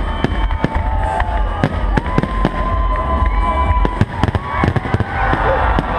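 Fireworks display going off in rapid succession: a dense string of sharp bangs and crackles over a deep rumble, with long wavering whistles and crowd voices underneath.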